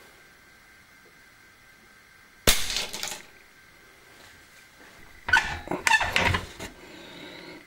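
A single sharp crack from a .22 air rifle pellet shot striking a 15 mm PVC pipe, with a short rattle after it, about two and a half seconds in. A few seconds later comes a quick cluster of knocks and rattles as hands handle the pipe and cardboard on a wooden workbench.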